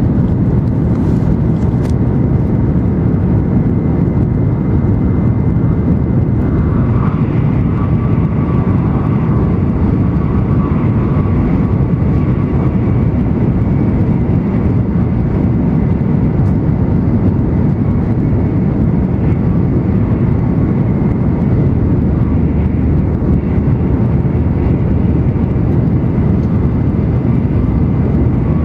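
Steady rumbling cabin noise inside an N700 series Shinkansen running at high speed. A faint high whine joins for several seconds about a quarter of the way in.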